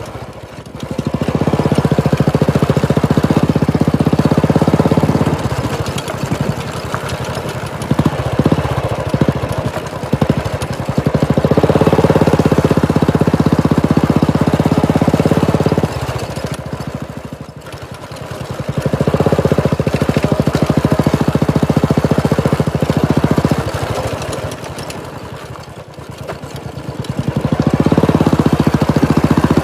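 Royal Enfield Classic 350's single-cylinder engine through a Red Rooster aftermarket exhaust, the bike being ridden: the exhaust note swells under throttle in four loud stretches of a few seconds each and drops back between them as the throttle closes.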